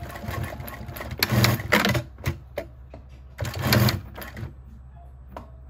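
Direct-drive walking foot lockstitch sewing machine stitching through thick layers of webbing in short runs. The stronger bursts come about a second and a half in and again past three and a half seconds, followed by a few light clicks.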